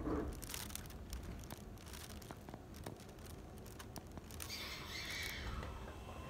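JR Hokkaido 733 series electric train pulling slowly away: a low rumble with scattered light clicks from the wheels and track. About four and a half seconds in comes a brief falling hiss, and near the end a steady whine begins.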